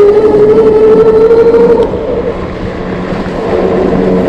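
Super73 Z1 e-bike's 500-watt motor whining as the bike rides along, its pitch slowly rising with speed. The whine drops away about two seconds in and comes back near the end, over steady road and wind noise.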